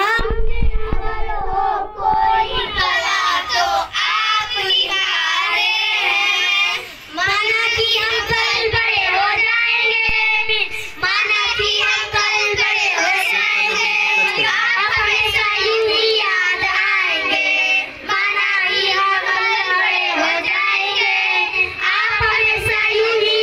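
Group of children singing together into a microphone, a boy's voice leading. A low rumble on the microphone sounds in the first couple of seconds.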